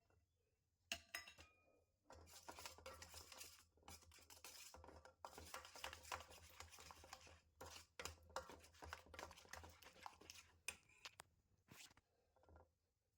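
A kitchen utensil scraping and clinking against a bowl while ingredients are mixed: one sharp clink about a second in, then about ten seconds of continuous scraping and tapping with a few short pauses.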